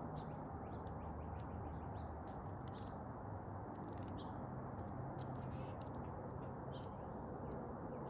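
Faint, short bird chirps and scattered light clicks of an eastern bluebird pecking seed, over a steady low background hiss.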